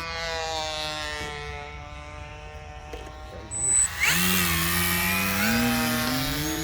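Electric motor and propeller of an E-flite Timber X RC plane whining, at first easing down slightly in pitch, then about four seconds in throttled up sharply, the pitch climbing steadily as it builds speed.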